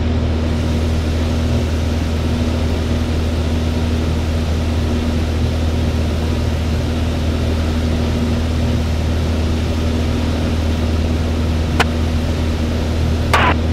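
Single piston engine and propeller of a Van's RV light aircraft droning steadily in cruise, heard inside the cockpit with airflow noise over the canopy. Two brief clicks come near the end.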